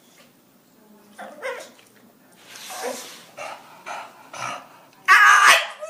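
English bulldog "talking" back in a string of short vocal noises, the loudest about five seconds in.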